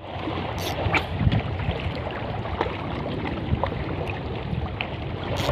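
Small waves lapping and splashing steadily, with wind on the microphone and a few light clicks and knocks now and then.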